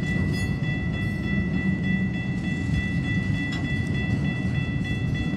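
Freight train of autorack cars rolling past: a steady, heavy rumble of wheels on rail, with a steady high-pitched ringing tone over it.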